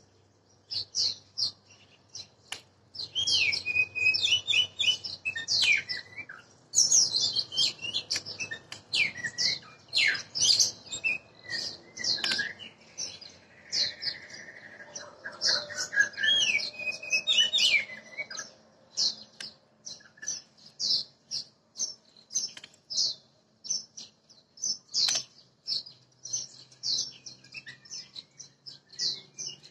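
Oriental magpie-robin singing: a long run of varied high whistled phrases and quick chirps, broken by short pauses.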